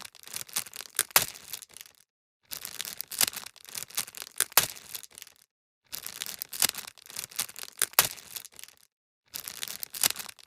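Plastic packaging crinkling and crackling as it is handled and unwrapped, in dense irregular clicks. It comes in four stretches, each cut off by a sudden total silence.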